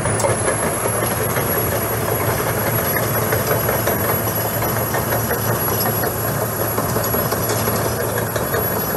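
Laurini Muletrax 2500 crawler carrier's diesel engine running steadily as the machine drives along on its rubber tracks, with a constant low engine note and a light clatter from the tracks and running gear.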